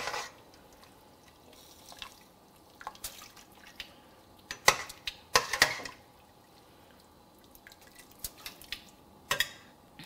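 Splashes and drips of water as yellow noodles are dropped into a pot of boiling water: a handful of short, sharp splashes at scattered moments, the loudest about five seconds in.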